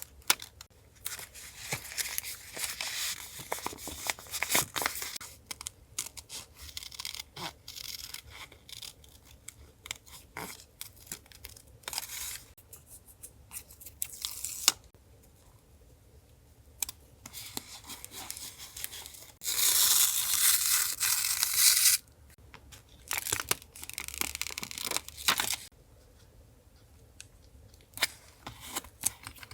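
Paper being handled and torn for a collage: rustling, crinkling and small taps, with one long, loud tear a little past the middle.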